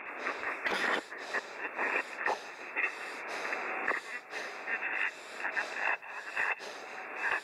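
A person breathing heavily and fast, in quick ragged breaths about two or three a second.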